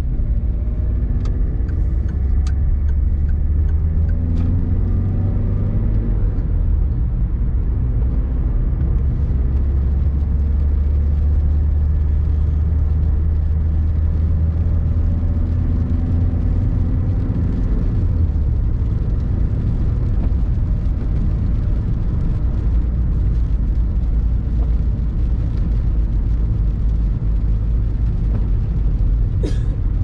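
Van engine and wet-road tyre noise heard from inside the cabin as the van accelerates, the engine pitch rising through the gears twice. There are a few light ticks in the first seconds and a short sharp noise near the end.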